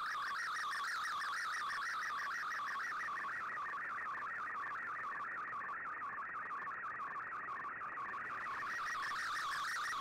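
Shortwave Radiogram digital picture transmission on 15770 kHz, heard through an Icom IC-R8600: an MFSK image signal, a steady, rapidly warbling band of tones that carries a colour picture line by line.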